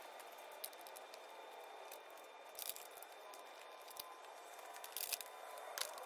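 Faint rustling with a few short crinkles and clicks of a vinyl sticker being handled by hand.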